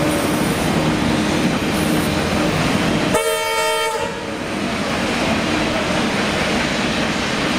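Heritage train running away along the track with a steady rumble of wheels and locomotive. About three seconds in, a short train whistle toot of under a second.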